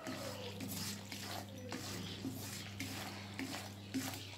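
Spatula stirring and scraping besan (gram flour) as it roasts in ghee in an iron kadai, a soft scrape about every half second. A steady low hum runs underneath.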